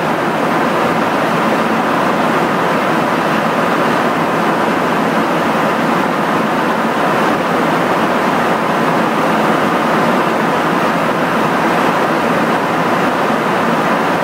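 Steady rushing noise of airflow and jet engines heard from inside a KC-135 tanker in flight, at an even level with no changes.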